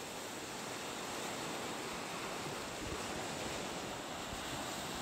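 Small lake waves washing onto a sandy beach, a steady wash of surf with wind rumbling on the microphone.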